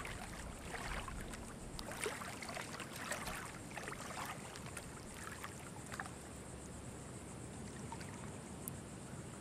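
Shallow water splashing and sloshing in irregular bursts, busier in the first half and calmer toward the end.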